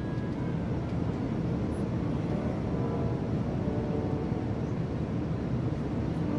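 Steady cabin noise of an Airbus A321 airliner in flight: an even, low rumble of engines and airflow heard from inside the passenger cabin.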